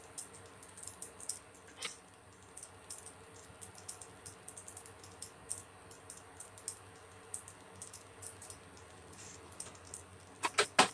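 Light plastic clicks and taps from a bottle of sweet chili sauce being handled and its cap opened, scattered irregularly. A few louder knocks come near the end.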